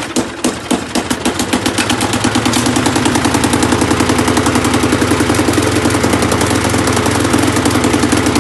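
Briggs & Stratton single-cylinder lawn mower engine starting and picking up speed over the first couple of seconds, then running steadily with a lot of clunking: the engine is not attached to the mower deck.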